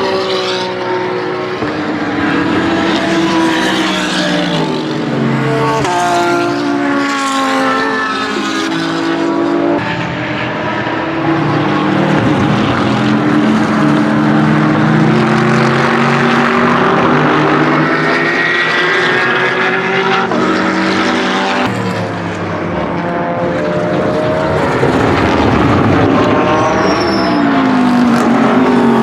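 BMW M6 GT3 race car's twin-turbo V8 running hard on track, its pitch climbing through the gears and dropping on downshifts several times as it passes and pulls away.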